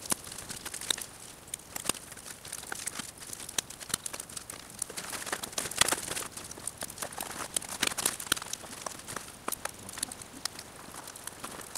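Dry birch bark crackling and rustling as it is handled and broken: a dense, irregular run of crisp snaps and clicks.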